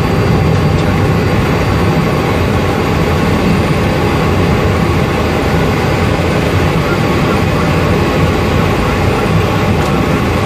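Fokker 50's twin turboprop engines and propellers running steadily on the landing rollout, heard from inside the cockpit as a constant, even noise.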